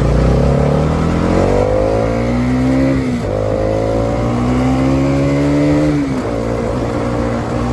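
Motorcycle engine accelerating through the gears: the pitch climbs, drops sharply at an upshift a little after three seconds in, climbs again, drops at a second upshift about six seconds in, then holds steady.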